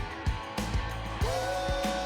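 Background rock music with drums and guitar; a held guitar note bends up about halfway through.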